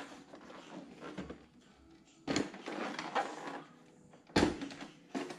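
Plastic body of a Canon Pixma E3370 printer being handled and turned round on a countertop: rubbing and scraping from about two seconds in, then a sharp knock as it is set down, and a smaller one just after.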